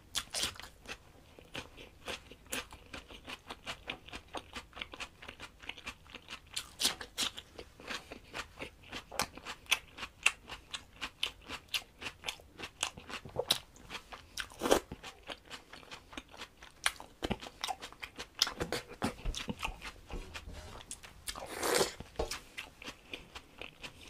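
Raw cucumber being bitten and chewed close to the microphone: a continuous run of crisp crunching clicks, several a second, with a longer, louder scraping sound near the end.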